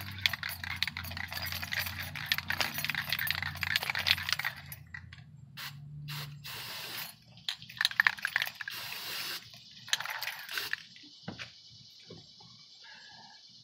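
Washcloth rubbing and wiping over a leather car seat. It is a dense scrubbing noise for the first few seconds, then shorter spells of rubbing that die away a few seconds before the end.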